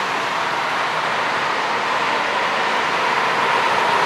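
Airbus A320's CFM56 jet engines running at taxi thrust: a steady rushing noise with a whine in it, growing a little louder near the end.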